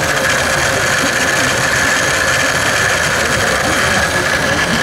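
Motorized K'Nex roller coaster running: a steady mechanical whir from its battery-powered lift motor and the plastic car travelling along the track.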